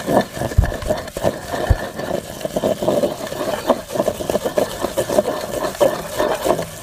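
Wooden pestle pounding and grinding a damp almond and poppy-seed paste in a clay mortar, in quick steady strokes of about four a second.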